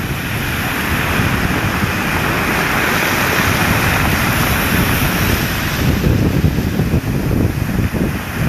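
Storm-swollen sea waves breaking and washing in, a surge of hiss building to its loudest a few seconds in, with wind buffeting the microphone in an uneven low rumble.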